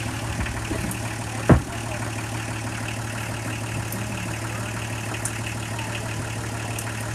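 Small engine running steadily, driving a rotating steel-drum tumbler that mixes clay and straw, with one sharp thump about a second and a half in.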